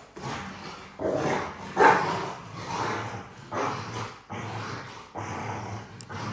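Two dogs play-fighting, growling and barking in a run of bursts about a second apart, the loudest about two seconds in.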